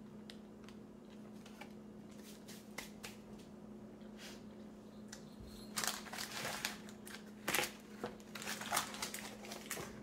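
Crinkling and rustling of the wrapping around a freshly baked marble cake as it is handled, in bursts over the last four seconds or so. Before that there are only a few faint clicks over a steady low hum.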